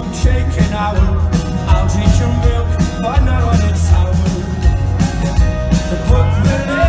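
Loud live pop-rock band music: a male voice singing into a microphone with acoustic guitar over a strong bass and a steady beat, heard through the hall's PA from within the audience.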